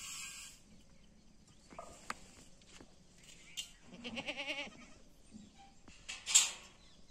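A goat kid gives one wavering bleat about four seconds in. A few light clicks come earlier, and a short, loud rush of noise comes near the end.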